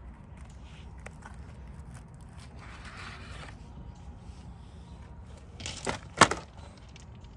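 Wrapping on a long cardboard firework tube crinkling and tearing as it is pulled open by hand, with scattered light clicks. Near the end come two sharp knocks, the second much the loudest.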